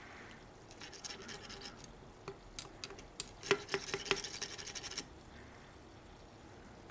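Faint scraping and rubbing, then a run of sharp little clicks about two to four seconds in, as a screwdriver tip is worked in the metal fill port of a liquid CPU cooler's radiator while a plastic syringe is handled.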